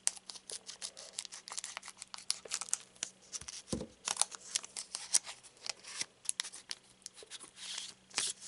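Foil booster-pack wrapper crinkling and crackling in the hands as the cut pack is opened and the trading cards are slid out, in many short irregular crackles.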